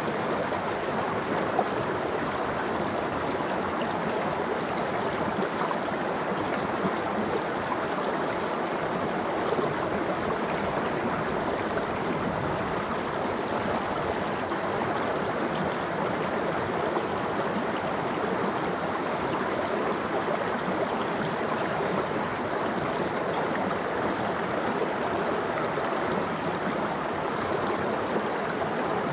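Mountain stream running over rocks: a steady rush and babble of water.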